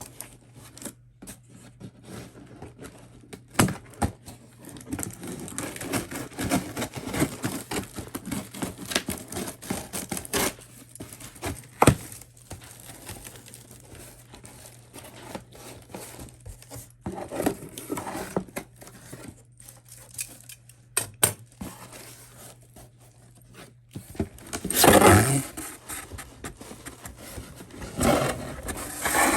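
Keyboard packaging being opened by hand: cardboard and plastic scraping, rustling and crinkling, with scattered knocks and two louder bursts of rustling near the end. A steady low hum runs underneath.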